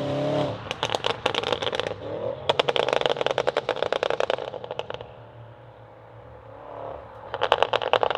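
Tuned Audi RS6 C8's twin-turbo 4.0 V8 through a Capristo exhaust, revs dropping off throttle into rapid crackles and pops from the exhaust. Two runs of crackles follow each other, then a couple of seconds of steady idle, and a third run begins near the end.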